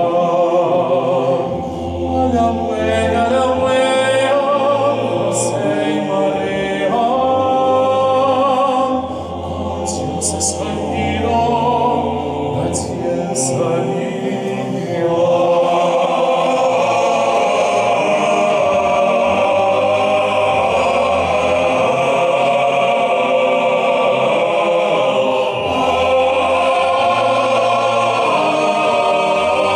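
Male choir singing a cappella in held chords, one voice with vibrato leading over the sustained lower parts. About halfway through, the full choir swells in and the sound grows louder and fuller.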